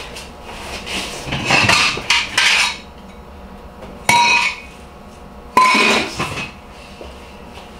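Handling and rummaging through shop items: a stretch of rustling, then two sharp metallic clinks about a second and a half apart, each ringing briefly.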